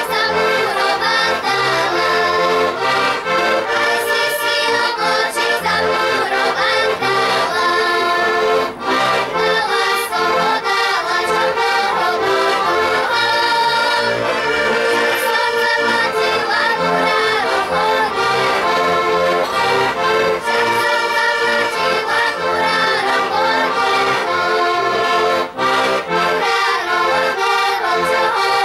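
An ensemble of accordions playing a folk tune together, with two short breaks between phrases, about nine seconds in and near the end.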